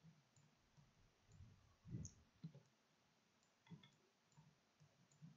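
Faint, irregular clicks of a computer mouse, about eight of them, with the loudest about two seconds in.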